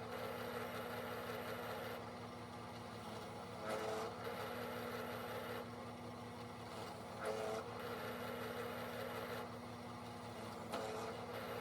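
Drill press motor running steadily, with the bit cutting through the water pipe in short passes about every three and a half seconds.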